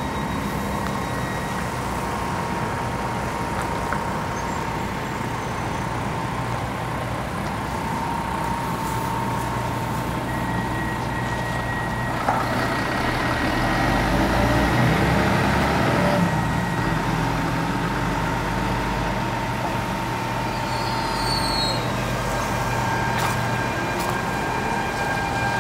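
Double-decker electric train standing at the platform: a steady hum with a few thin whining tones from its onboard electrical and ventilation equipment. About halfway through, a louder rushing noise lasts a few seconds.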